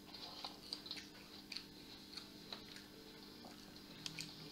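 Faint, irregular plastic clicks and rattles from a DT-830B multimeter's case and rotary range switch being handled and fitted together by hand, with a couple of quick clicks near the end as the selector knob is turned.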